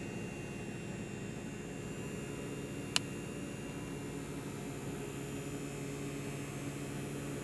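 Small handheld battery fan running with a steady buzz, with one sharp click about three seconds in.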